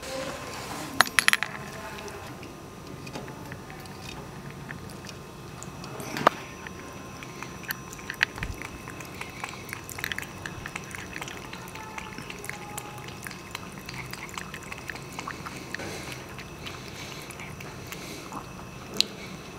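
A cat lapping water from a stainless steel bowl: soft, irregular wet ticks. A few sharp clinks stand out, about a second in, around six seconds in and near the end.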